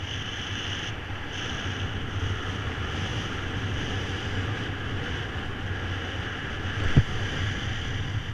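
Wind rushing over the microphone while a ski paraglider lands on skis and slides along the snow, with a steady low rumble and hiss. One sharp knock about seven seconds in.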